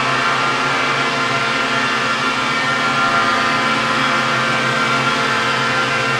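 Hovering quadcopter drones, each carrying a single accordion reed kept sounding by a fan. The propeller hum blends with the sustained reed tones, which together form a steady chord built on fifths.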